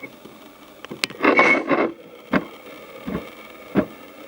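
Plastic Play-Doh tools being handled: a sharp click about a second in, a short scraping rustle right after it, then three dull knocks.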